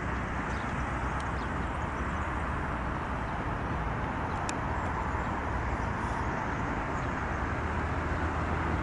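Steady background rumble and hiss of an outdoor field recording, with a few faint, very short high-pitched ticks, the clearest about four and a half seconds in.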